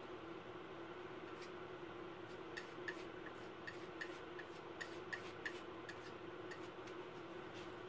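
A run of light, quick clicks, about three a second, lasting about four seconds in the middle, over a steady low room hum.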